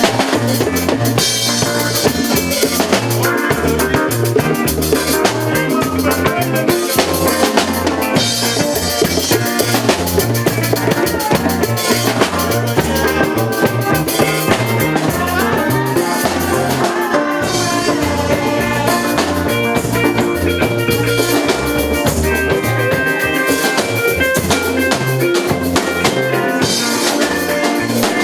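Music with a full drum kit keeping a steady beat, with bass and other pitched instruments.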